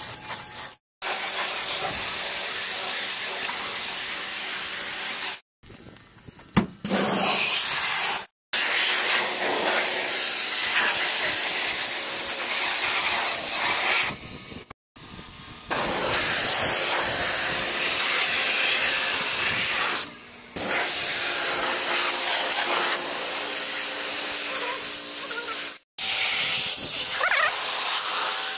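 High-pressure water spray from a car-wash wand, a loud steady hiss. It cuts off abruptly several times and starts again, with a quieter stretch a few seconds in.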